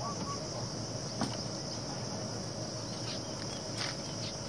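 Steady high-pitched chorus of insects trilling in the background, with a few faint clicks scattered through it.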